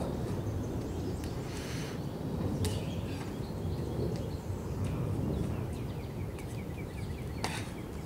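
Outdoor ambience: a steady low wind rumble on the microphone, with birds chirping a short run of quick notes midway and a few sharp taps, one about two and a half seconds in and another near the end.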